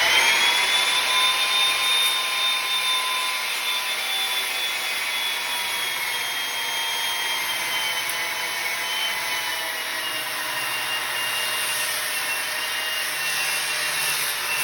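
Handheld circular saw running at full speed as it starts a rip cut into a wooden board: a steady high whine whose pitch sags a little as the blade works into the wood.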